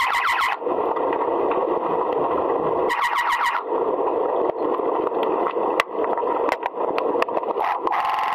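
Muffled underwater pool sound: a steady hiss with scattered sharp clicks. It is broken twice by a rapidly pulsed buzzing tone of about eight pulses a second, once until about half a second in and again for about half a second around three seconds in. The same tone starts again near the end.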